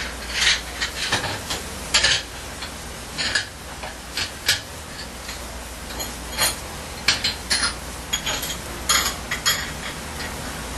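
Fish simmering at a hard boil in its broth under a wooden drop lid: irregular bubbling pops and crackles, several a second, over a steady low hum.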